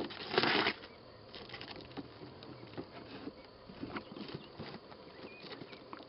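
Cardboard box handled and scraped over an open wooden beehive: a brief loud scrape in the first second, then faint scattered taps and rustles.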